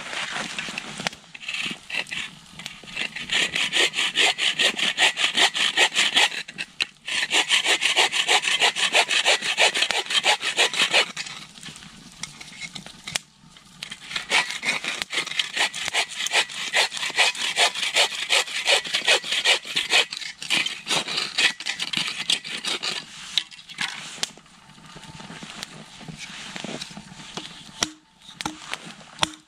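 Rapid rhythmic rasping strokes, about five a second, in long runs of several seconds broken by short pauses, quieter near the end.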